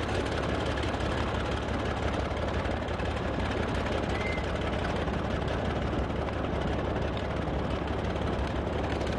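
Boat engine running with a steady, unchanging drone.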